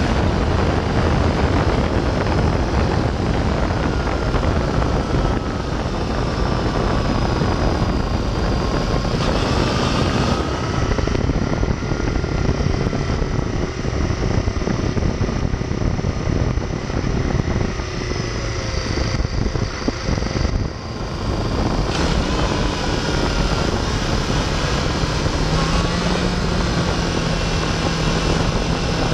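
Yamaha FZ6 motorcycle's inline-four engine running at speed under a heavy rush of wind on the microphone, its pitch rising and falling with the throttle. The sound dips briefly about twenty seconds in.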